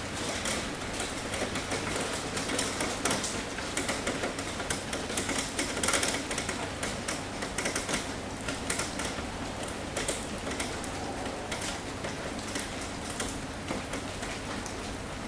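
Rain falling, with many close drops tapping irregularly on a hard surface over a steady hiss; the taps come thickest about six seconds in.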